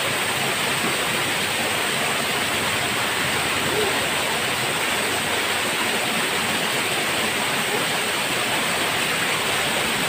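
Small waterfall pouring down a rock face into a shallow pool: a steady, even rush of falling water.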